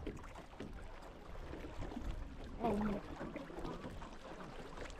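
Rowed tour boat moving along the river: soft water and oar noise under a low wind rumble on the microphone, with a short voice about two and a half seconds in.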